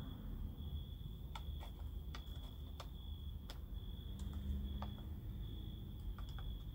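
A steady high-pitched insect trill that pulses on and off, with about a dozen sharp clicks scattered through it over a low rumble.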